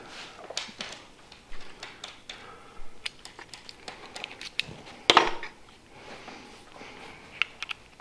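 Small metallic clicks and ticks as a hex driver turns a metal Festool Domino connector post into its hole in a cabinet panel, with one louder knock about five seconds in.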